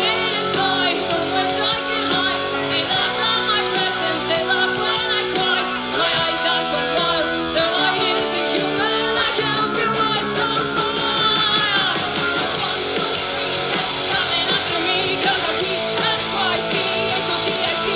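Live rock music: a woman singing over electric guitar and drums.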